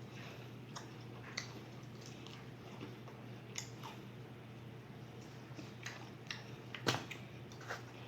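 Close-up chewing of food: soft mouth sounds with scattered short crunchy clicks, the loudest about seven seconds in.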